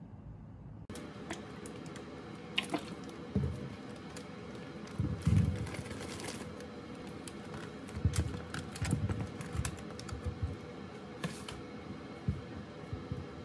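Cooking handling sounds: kitchen tongs click, and pieces of food knock and drop into a nonstick pan with dull thumps, mixed with paper-towel rustling, over a faint steady hum.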